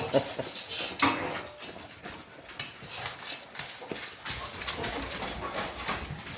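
Labrador retriever eating a dinner of kibble and chicken: wet chewing and crunching with many irregular clicks. There is a brief pitched sound about a second in.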